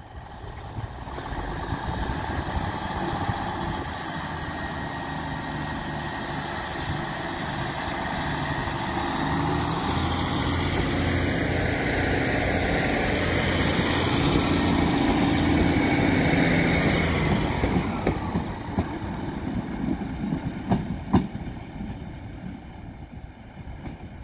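Class 150 Sprinter diesel multiple unit pulling away: its underfloor diesel engines rev up and grow louder as it comes past, then fade as it draws away. A couple of sharp clicks near the end.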